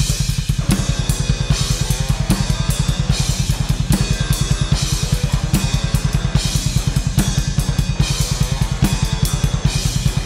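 Heavy metal played on an acoustic drum kit with electric guitar: fast, even bass drum beats drive under snare and cymbals, with the guitar playing along.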